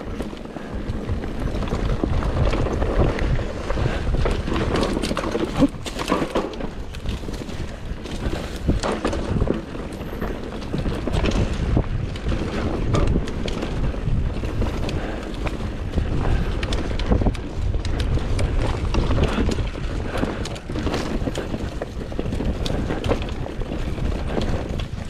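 Enduro motorcycle ridden along an off-road trail: the engine runs under heavy wind buffeting on the microphone, with frequent knocks and clatter from the rough ground.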